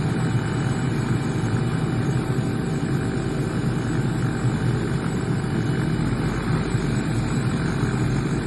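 Robinson R44 helicopter's engine and rotor running with a steady, unbroken drone.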